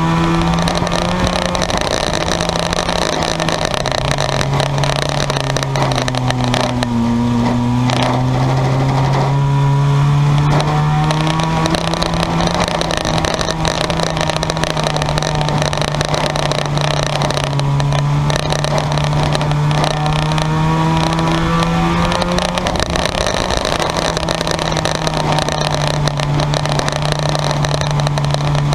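Engines of junkyard race cars running hard on the track, their pitch stepping and gliding up and down as they accelerate and lift.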